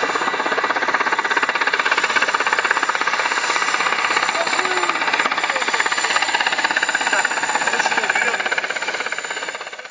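A motor running steadily with a fast, even pulsing, fading out near the end.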